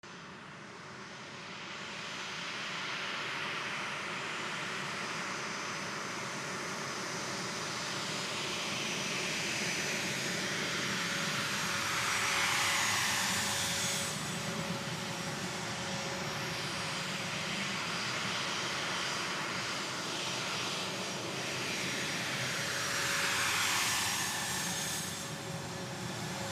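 A-10 Thunderbolt II twin TF34 turbofan engines whining at taxi power. Twice the whine swells and sweeps down in pitch as an aircraft rolls close past.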